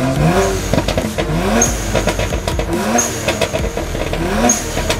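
Car engine blipped up about four times in quick rising revs, with short crackling exhaust pops as the throttle drops between blips; the pops are very subtle.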